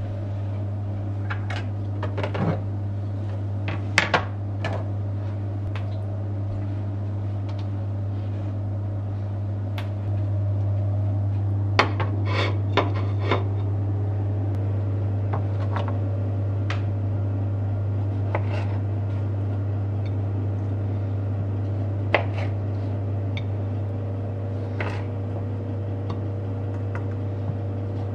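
Microwave oven running with a steady low hum, which gets a little louder about a third of the way in and picks up a higher steady tone about halfway. Occasional light clicks and knocks of dishes and utensils on the kitchen counter sound over it.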